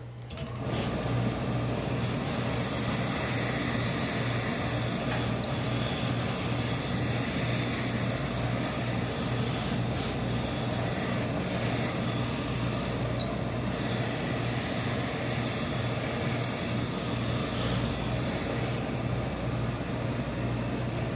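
Tailor's steam-pressing equipment switching on about half a second in and running steadily: a low machine hum under a continuous hiss.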